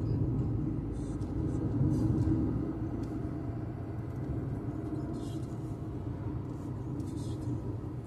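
Steady low rumble of a car being driven, engine and road noise heard from inside the cabin, swelling a little about two seconds in.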